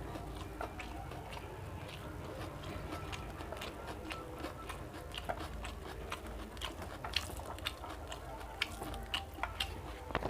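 A person chewing food close to the microphone: irregular wet mouth clicks and small crunches, over a steady low hum.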